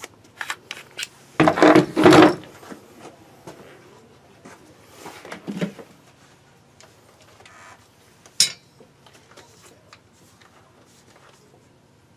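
Tools being handled and set down on a tabletop: scattered light clicks and knocks, a louder clatter about two seconds in, and one sharp click about eight seconds in.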